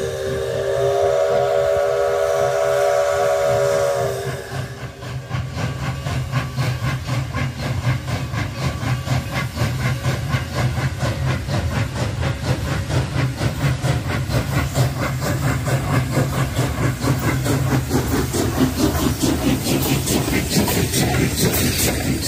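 Canadian National 7470, an 0-6-0 steam locomotive, blows one long steady blast on its steam whistle, several tones sounding together, which cuts off after about four seconds. It then passes close by with its coaches, a fast, even rhythmic clatter that grows louder toward the end.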